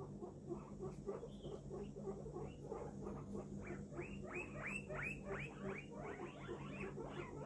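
Guinea pig squeaking: a run of short rising squeaks, several a second, loudest about halfway through, over a steady low hum.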